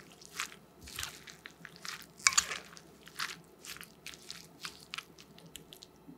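Metal spoon tossing chopped garlic chives and carrot in a wet soy, vinegar and chili-flake dressing in a ceramic bowl: irregular short wet squelches and clicks, the loudest about two seconds in.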